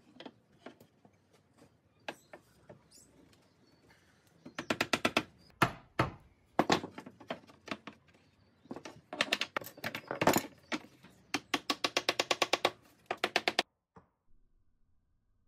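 Wooden mallet tapping glued mortise and tenon joints of a hardwood frame home: a few light clicks of wood being handled, then from about four and a half seconds in runs of quick light taps, several a second, that cut off suddenly near the end.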